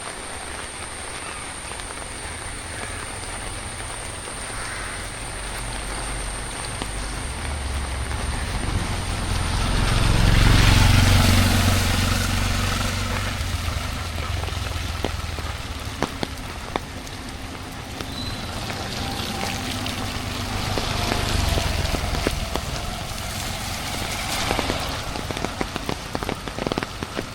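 Steady monsoon rain, with a vehicle passing on the wet road: a low rumble that swells to its loudest about ten seconds in, then fades. A thin, high, steady tone runs through the first third, and sharp drip clicks come near the end.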